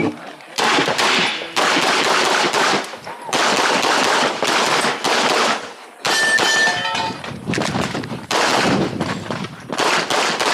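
Glock 34 Gen 5 9mm pistol fired in fast strings of shots, with short pauses about six seconds in and again near the end.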